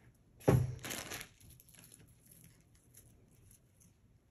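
Jewelry being handled and laid down on a cloth surface: a sudden rustle and bump about half a second in, then faint small handling sounds.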